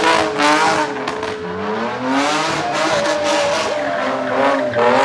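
BMW E30 sedan drifting in circles: its engine revs up and down over and over while the rear tyres squeal and scrub on the paving.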